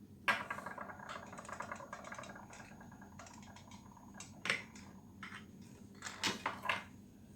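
Seashells clicking and clattering as they are handled: a sharp click, a quick rattle of small clicks lasting about three seconds, then a few single clicks near the end.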